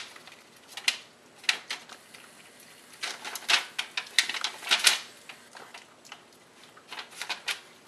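Wild piglet chewing an orange: bursts of sharp clicking, smacking chews with short pauses between, densest in the middle.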